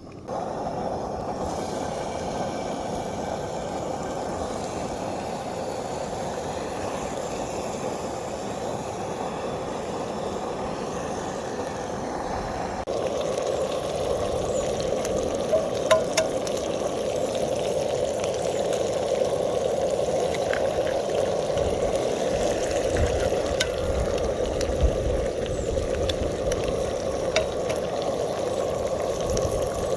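Breakfast cooking on a camp stove: a steady sizzling hiss, a little louder from about 13 seconds in, with a few small clicks.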